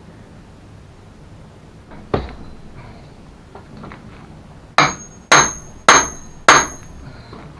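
Hammer striking metal: one duller knock about two seconds in, then four sharp blows about half a second apart, each with a brief metallic ring.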